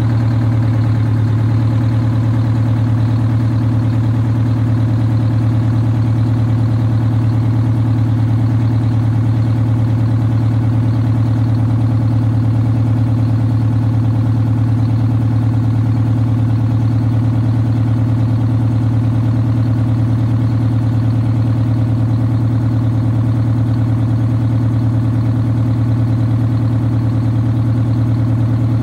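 Detroit Diesel 8V92TA two-stroke turbocharged V8 diesel in a Wanderlodge bus idling steadily with its rear engine hatch open: an even, unchanging low-pitched run with no revving.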